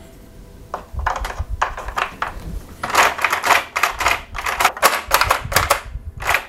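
Clicking and clacking of plastic parts on a Tomy Astro Shooter tabletop pinball game being handled: a few scattered clicks at first, then a quick run of sharp clicks for the last three seconds or so.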